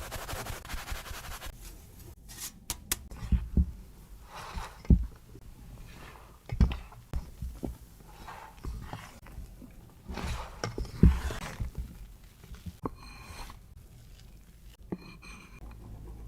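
Kitchen utensils knocking and scraping against a mixing bowl while cake batter is mixed: a series of separate thumps, short scraping swishes and a light ringing clink near the end.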